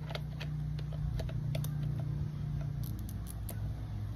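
Light, irregular clicking and ticking of a small toy piece or its wrapping being handled and worked between the fingers, over a steady low hum.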